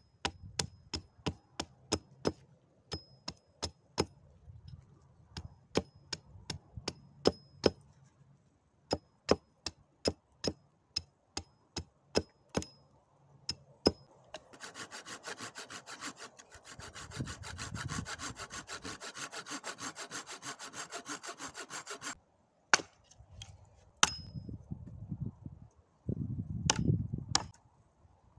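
Small hatchet splitting a thin branch: a run of sharp wood-on-metal knocks, one or two a second, some with a faint ring from the steel head. Midway there is a steady rasping of wood grating for about eight seconds, then a few heavier, dull chops near the end.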